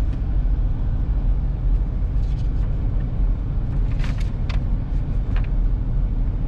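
Steady low rumble of a car driving slowly, heard from inside the cabin, with a few short clicks a little after the middle.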